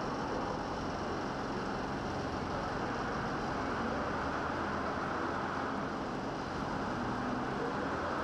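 Steady, even rushing background noise of a shipyard dry dock, with faint steady hum tones underneath and no distinct events.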